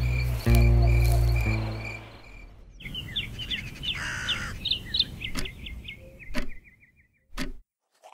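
Crickets chirping over a low sustained musical tone that fades out about two seconds in. Then birds chirp and trill for a few seconds, and a couple of sharp clicks come near the end.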